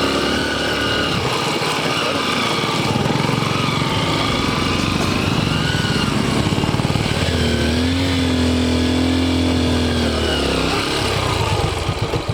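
Motorcycle engine running under way, its pitch rising, holding and falling again with the throttle. Near the end it drops to a slow, pulsing idle.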